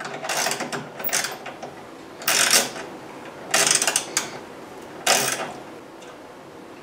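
Ratchet wrench clicking in short bursts as it loosens a rear-hatch gas-strut mounting bolt, in several separate strokes, the last about five seconds in.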